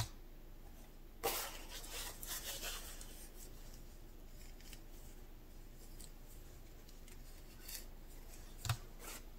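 A small plastic cup set down with a tap, then a paper towel rubbing and crinkling against the cup's rim as paint is wiped off it, with a light knock near the end.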